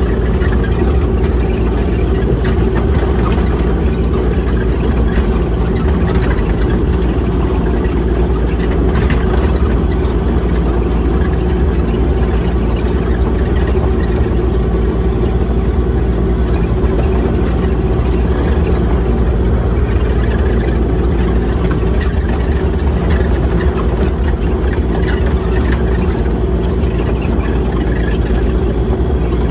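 Excavator's diesel engine running steadily at constant speed, an even hum with no change in pitch or level.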